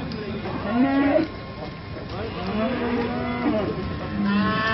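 Aubrac cows mooing: three long calls, each rising and then falling in pitch, about a second in, a longer one in the middle, and another starting near the end.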